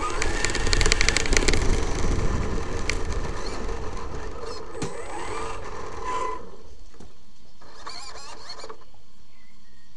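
Onboard sound of a Traxxas X-Maxx electric RC monster truck driving over dirt and gravel: a steady motor whine under tyre noise and a rapid clatter of stones and knocks against the body. It slows and stops about six and a half seconds in, and the sound drops away.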